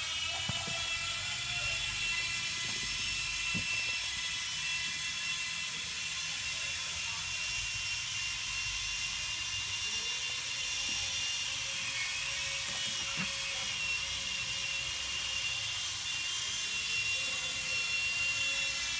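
Electric power tool running with a steady high-pitched whine, with a few faint knocks.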